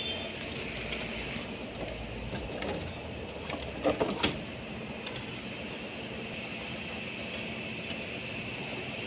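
Car battery being lowered into its tray under the bonnet and worked into place: two sharp knocks close together about four seconds in, with a few lighter clicks, over a steady background hum.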